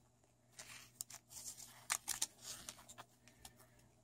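Faint crinkling and scratching of a soft plastic coin sleeve handled in rubber-coated work gloves, with a few light clicks.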